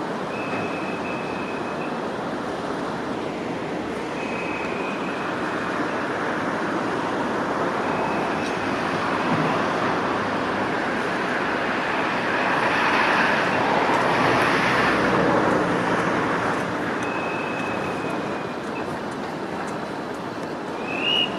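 Steady road traffic noise that swells as a vehicle passes about two-thirds of the way through, with a short high tone recurring every four seconds or so.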